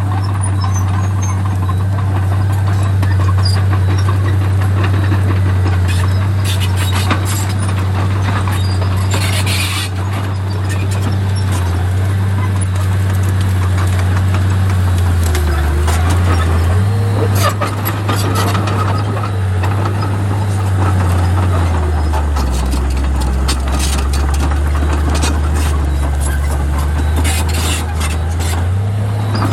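Komatsu D31P crawler bulldozer's diesel engine running steadily, its note dropping lower twice for a few seconds (about halfway, and again for several seconds past two-thirds) before rising again near the end. Scattered sharp clanks and knocks are heard over it.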